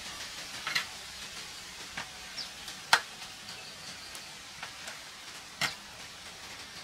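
Knife cutting rice-paper rolls on a metal tray: scattered clicks and taps, with a sharp knock about three seconds in and another about a second before the end, over a steady faint hiss.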